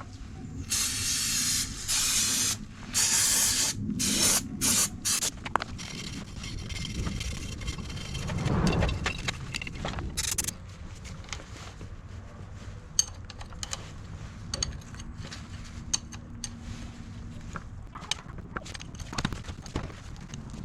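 An aerosol spray can spraying in a run of short bursts of hiss, the longest lasting under a second, with one more short burst about ten seconds in. Light clicks and taps follow.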